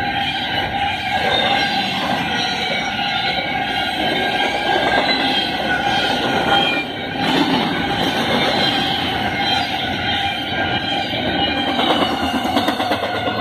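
BNSF double-stack intermodal train's well cars rolling past at track speed, about 60 mph: a steady, loud rush and rumble of steel wheels on rail, with several steady high-pitched tones ringing over it.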